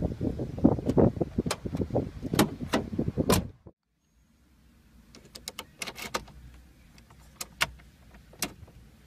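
A car key and its fob clicking and rattling rapidly and loudly against a car's door handle and lock for about three and a half seconds, then stopping abruptly. A few fainter, scattered clicks follow as the key is handled.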